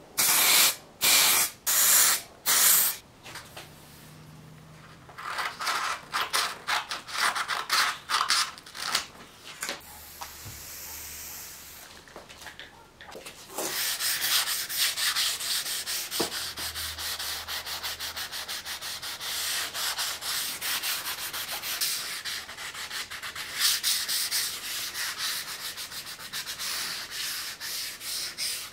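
A hand pad rubbed briskly back and forth along a freshly coated steel Mauser 98k bayonet scabbard: fast rubbing strokes, densest from about halfway in. It opens with a few short hissing spray bursts.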